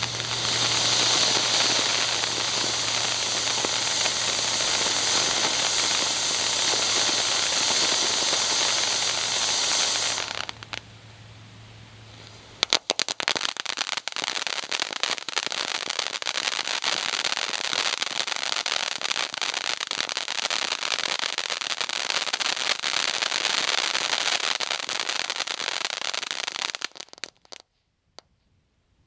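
World Class Golden Flower ground fountain firework burning. About ten seconds of loud, steady hissing spray, a quieter spell of two seconds, then about fourteen seconds of dense crackling that stops suddenly near the end.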